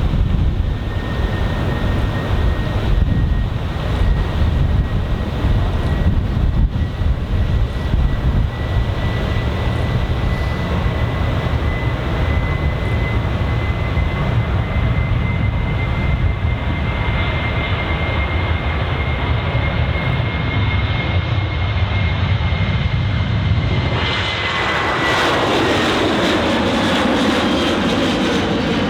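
Boeing 737-700's CFM56-7B turbofan engines at takeoff power: a steady jet roar with a high whine that creeps slowly up in pitch. Near the end the whine drops in pitch and the sound changes as the jet passes.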